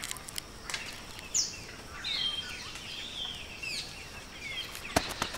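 Rainforest birds calling, with short falling whistles and chirps, over a few sharp knocks or clicks, the loudest a close pair about five seconds in.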